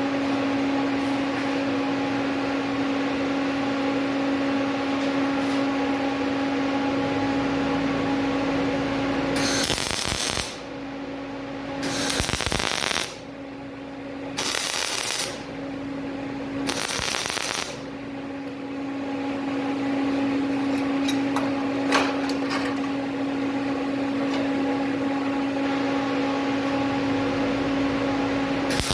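Welding on a car frame mount: a steady machine hum, broken by several short bursts of crackling arc, about a second each, four in quick succession around the middle and one more near the end.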